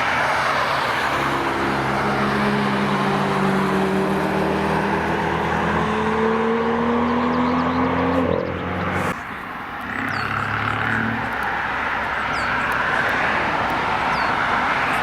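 A car's engine accelerating along a wet track, its pitch climbing steadily for several seconds over a hiss of tyres and spray. It cuts off abruptly about nine seconds in, leaving a steady road and tyre hiss with a fainter engine under it.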